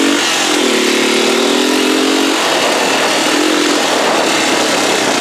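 Small dirt bike's engine running under throttle while being ridden, its note rising and falling and strongest in the first half, with wind rushing over the microphone.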